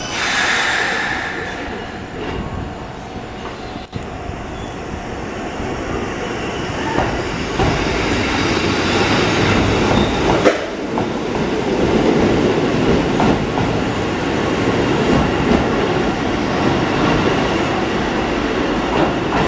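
Kotoden Nagao Line electric train pulling out of the station. A burst of hiss as it starts, then a rumble that builds as it gathers speed, with its wheels clacking over rail joints, one sharp clack about halfway.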